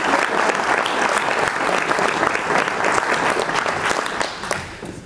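Audience applauding steadily in a large hall, dying away near the end.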